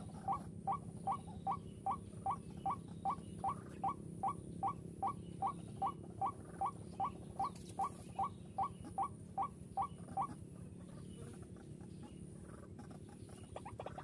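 White-breasted waterhen calls: an even series of short, rising, squeaky notes, about two and a half a second, that stops about ten seconds in. A quicker run of notes begins near the end.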